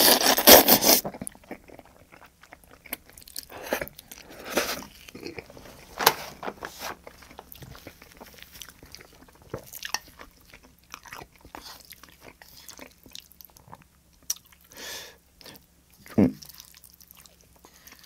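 Close-miked slurp of a mouthful of tomato spaghetti, loud and lasting about a second, then wet chewing with scattered mouth clicks and smacks.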